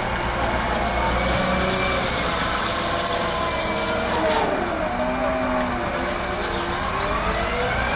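Engine of a wheeled rotary snow blower running as the machine drives and turns, its pitch slowly rising and falling with a low rumble underneath.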